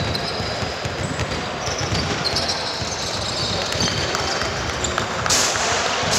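Live basketball game: a ball bouncing on the court and shoes squeaking over a steady din of the game, with a short burst of hiss about five seconds in.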